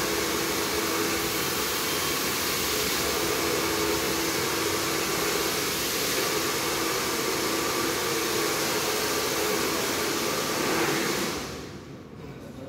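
Handheld hair dryer blowing steadily, with a faint motor whine over the rush of air. It is switched off about eleven seconds in.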